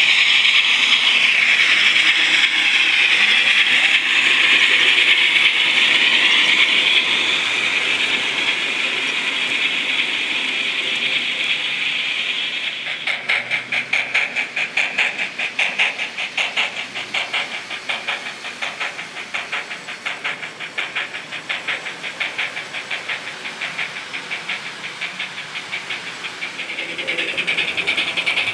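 Simulated steam-locomotive sound from a model 141TA tank engine's digital sound decoder, played through its small onboard speaker. A steady hiss of steam comes first. About halfway in, a rapid, even beat of exhaust chuffs starts, and the hiss swells again near the end.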